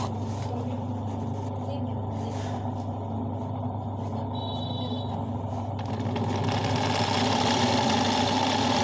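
Motor-driven sewing machine running steadily as it stitches hand-guided embroidery in a hooped fabric, with a constant low motor hum; it gets louder about six seconds in.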